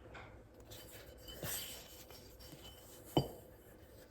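Steel knife blade rubbing against a whetstone in soft rasping strokes, with a stronger stroke about a second and a half in. About three seconds in, a single sharp clink of metal with a brief ring.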